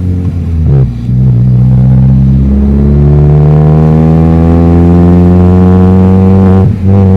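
Straight-piped Chevrolet Astra 2.0 engine accelerating, its exhaust note climbing steadily in pitch through a long pull, with brief dips at gear changes about a second in and near the end.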